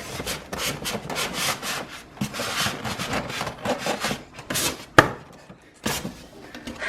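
Large cardboard box and its packaging being pulled open: repeated scraping and rubbing strokes of cardboard on cardboard, with one sharp knock about five seconds in.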